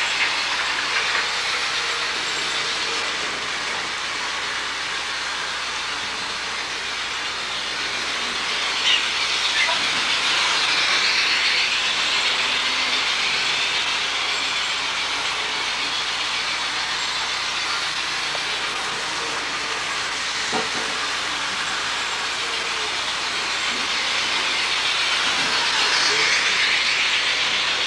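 Model trains running on the layout's metal track: a steady rolling whir and hiss that swells twice as a train passes close, about a third of the way in and near the end, with a few light clicks.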